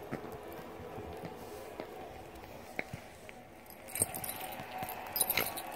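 Dog's collar tags jingling in a few sharp clinks from about four seconds in as the dog shifts its head, over a low steady background murmur.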